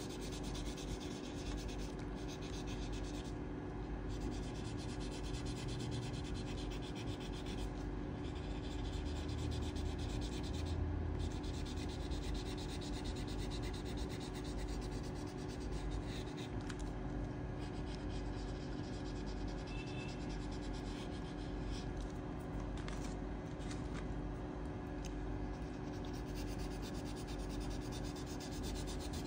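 A colouring pencil scratching over paper in rapid back-and-forth shading strokes, a continuous rubbing scratch.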